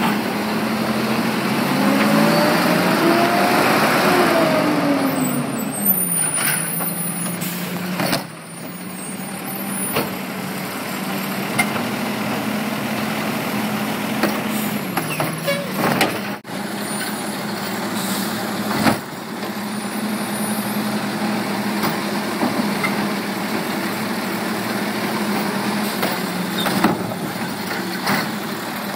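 Garbage truck's diesel engine running while its side-mounted cart tipper lifts, dumps and lowers a trash cart; the engine revs up and back down a few seconds in and again midway, with several sharp bangs of the cart and lift arm.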